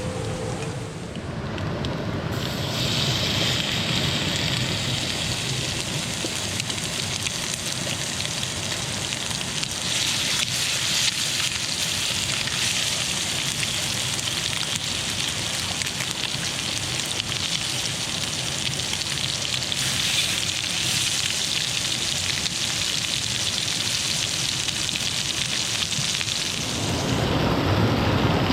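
Heavy rain falling in a steady, dense hiss, turning to a deeper, fuller rush near the end.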